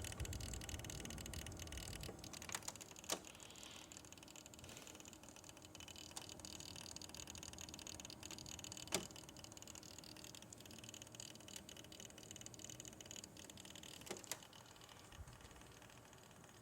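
Corsair H80i all-in-one liquid cooler making sharp cracking and popping sounds at irregular intervals, a handful of them, the loudest about 3 s and 9 s in, over a steady whirr of fans.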